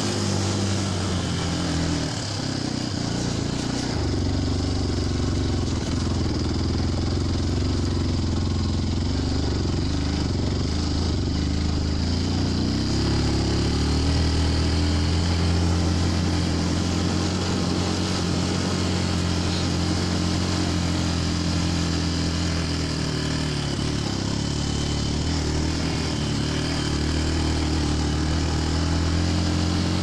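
Yamaha WR125R's single-cylinder four-stroke engine running at about 20 km/h. Its pitch dips early on, rises about halfway through and dips again near the end as the throttle changes.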